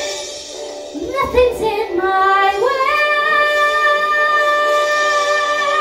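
A young girl singing into a handheld microphone. After a few moving phrases she steps up to one long held note about three seconds in.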